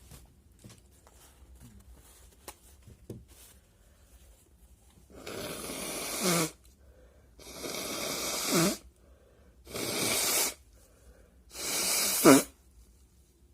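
A person blowing their nose hard four times, each blow a noisy rush of about a second that ends in a short pitched honk.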